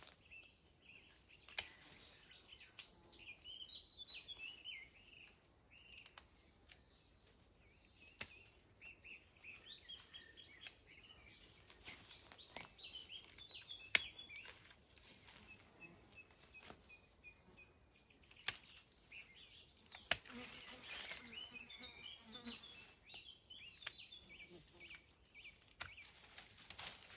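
Small birds singing and chirping on and off throughout. Scattered sharp snaps and clicks and a burst of rustling, from small dead branches being broken and pulled off by hand.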